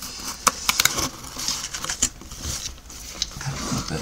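Hands working the lid of a large cardboard box open: cardboard scraping and rubbing, with a scatter of sharp clicks and taps.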